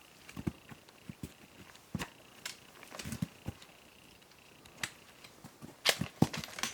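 Hiking footsteps on a rocky trail: irregular thuds and sharp clicks, a step or two a second, loudest near the end.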